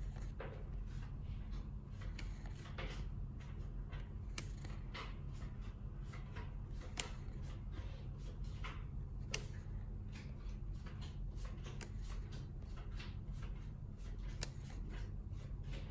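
Magic: The Gathering proxy cards being handled: soft rustles of cards sliding against one another as they are drawn from a stack, with a few sharp clicks, over a steady low hum.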